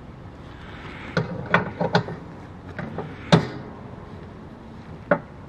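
Irregular sharp clicks and knocks of a ratchet, extension and socket being worked on the square tensioner bar under a lawn tractor's mower deck, about seven in quick succession with the loudest knock about three seconds in, and one more near the end.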